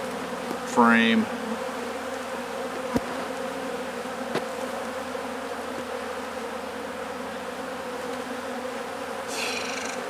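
Honey bees buzzing around an opened hive, a steady hum of many bees, with a couple of light clicks about three and four and a half seconds in.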